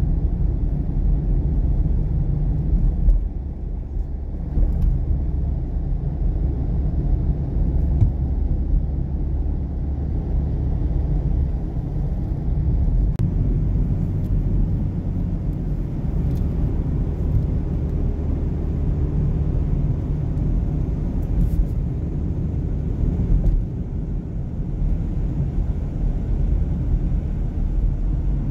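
Car driving on an asphalt road, heard from inside the cabin: a steady low rumble of engine and tyre noise.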